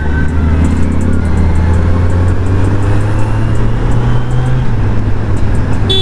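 Kawasaki Z900's inline-four engine with its stock exhaust, running under steady throttle while riding. The pitch climbs slowly, then drops a step about three-quarters of the way through.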